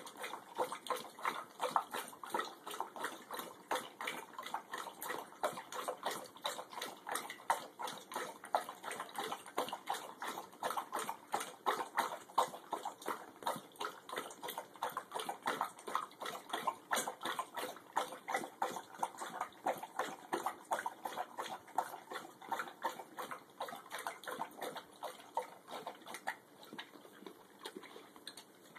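Dog lapping water from a metal bowl: a steady run of quick, splashy laps, about four a second, easing off near the end.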